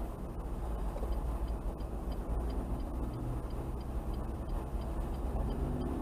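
Car cabin sound: steady low engine and tyre rumble while driving, with a light, even ticking of the turn-signal indicator at about three ticks a second starting about a second in.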